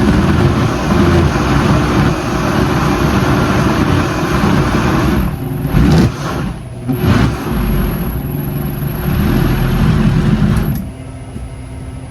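Countertop blender motor running at speed, blending a full jar of thick salsa verde. It cuts out briefly twice about halfway through, then switches off near the end.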